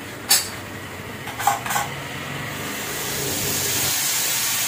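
Metal cookware clanking three times as a pot lid and pan are handled on the stove, then a steady sizzle of frying rises in about halfway through.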